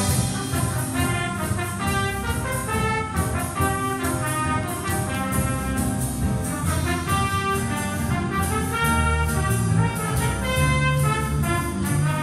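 School jazz band playing a big-band tune: trumpets, trombones and saxophones over piano and rhythm section, in busy, fast-moving lines with held low notes near the end.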